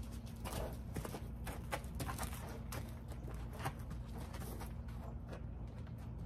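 A horse's hooves stepping and scuffing on sandy dirt as it turns on a lead rope: a dozen or so irregular steps over a few seconds.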